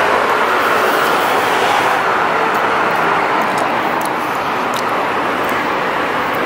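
Steady road traffic noise, easing slightly in the second half.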